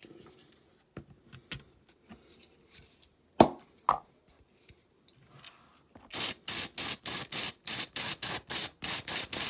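A few light clicks and taps, then a rhythmic rasping scrape of about four quick back-and-forth strokes a second, the loudest sound here, starting about six seconds in.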